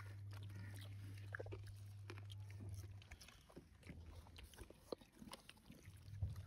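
Quiet crunching and scattered small clicks of people eating crisp fried homemade potato chips, over a steady low hum that drops away about three seconds in and returns near the end.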